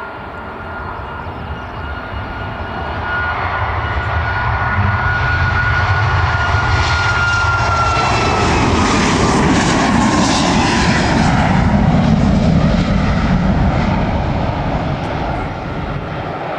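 Boeing 737 MAX 8-200's CFM LEAP-1B jet engines at takeoff power as the airliner rolls, lifts off and climbs away. A high whine drops in pitch about eight seconds in as the aircraft passes. The engine roar builds to its loudest shortly after, then fades as it climbs out.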